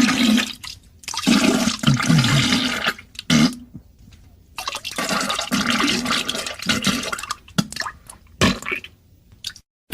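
Diarrhea sound effect: wet, noisy spurts with low fart-like tones, in several runs broken by short gaps.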